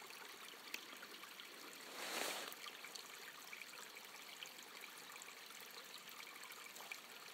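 A stream trickling faintly and steadily, with a brief louder whoosh about two seconds in.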